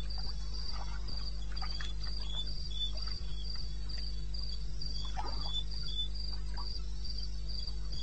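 Crickets chirping at night, two at different pitches, each repeating short chirps, the higher one about twice a second, over a steady low hum.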